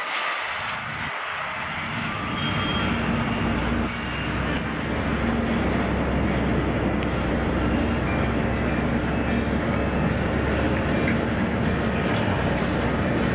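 Steady rumble and rushing air inside a moving cable car cabin, with a low hum that grows louder about two seconds in.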